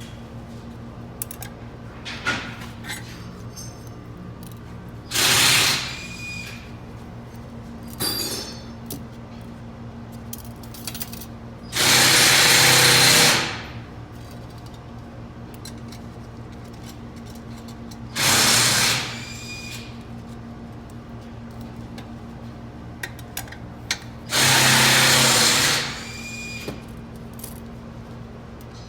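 A power tool run in four short bursts of one to two seconds each, each tailing off with a falling whine as it stops. Light clicks sound in between.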